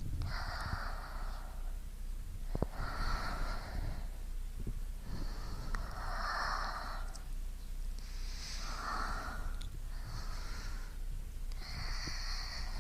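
A person breathing slowly and audibly, recorded close to both ears: about six breaths in and out, each lasting about a second, coming every couple of seconds.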